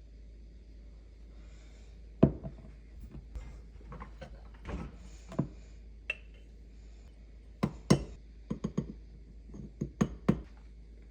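Kitchen utensils and containers being handled: a dozen or so irregular knocks and clinks, starting about two seconds in, the loudest two coming a couple of seconds in and again past the middle.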